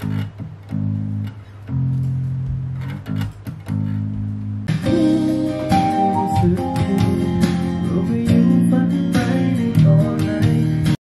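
Electric bass guitar playing a line of low notes on its own; about five seconds in, a fuller band mix with guitar comes in over it. The music cuts off suddenly near the end.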